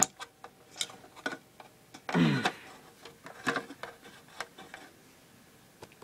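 Handling noise from an aluminium drink can and a small plastic USB mini fridge: scattered light clicks and knocks, with a short louder scrape about two seconds in.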